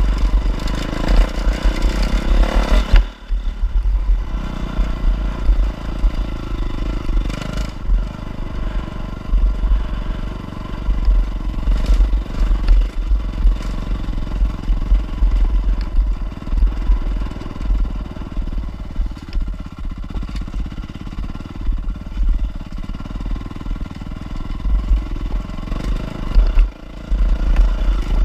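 Off-road trail motorcycle engine running while riding, its note rising and falling with the throttle, with heavy low buffeting and a few sharp knocks from the rough ride.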